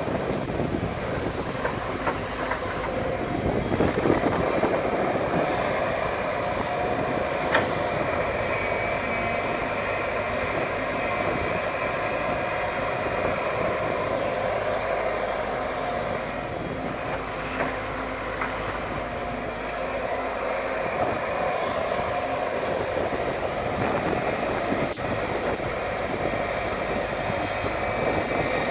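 JCB tracked excavator's diesel engine running steadily under working load with a thin steady whine, and a few sharp metallic knocks as the bucket digs the mud.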